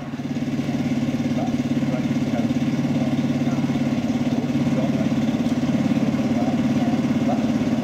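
Engine of a miniature railway diesel-outline locomotive starting up and then running at a steady idle, with an even, low pulsing beat.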